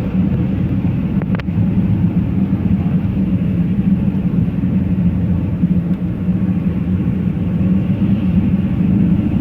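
A moving train runs with a steady low rumble, with a single sharp click about a second and a half in.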